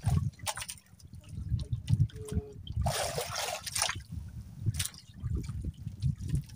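Water splashing and trickling close by, with a louder rush of splashing about three seconds in and low knocks underneath.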